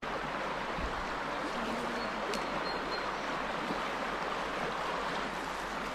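Steady rush of a fast-flowing river running over shallow riffles.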